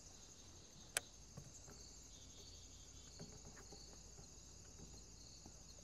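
Faint, steady high-pitched insect chirping, with one sharp click about a second in.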